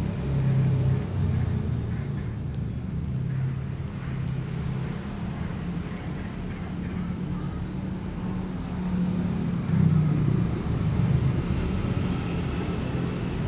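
Steady low rumble of an engine running, swelling briefly about ten seconds in.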